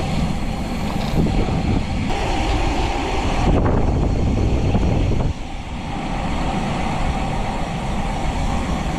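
Steady wind rush and road noise from riding a bicycle, recorded on a helmet- or bike-mounted action camera. The rush drops suddenly about five seconds in.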